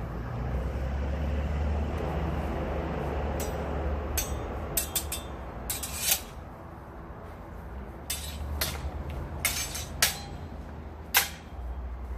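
Steel longswords clashing in a sparring exchange: a run of sharp metallic clanks starting about three seconds in, several in quick clusters, the loudest two near the end. A low rumble runs underneath.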